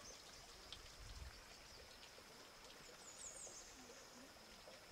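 Near silence: faint sound of flooded river water moving, with a few brief high chirps about three seconds in.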